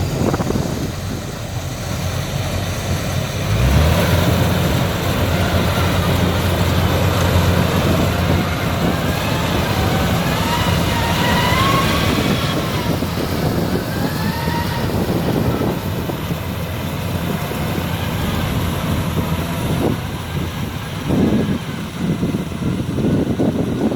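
Combine harvester's diesel engine running. A steady low engine hum comes in strongly about four seconds in and eases off after the middle.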